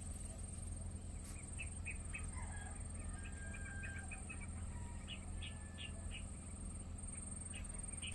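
Scattered short high chirps of small animals, coming irregularly and thickest in the middle, over a steady low hum and a thin steady high tone.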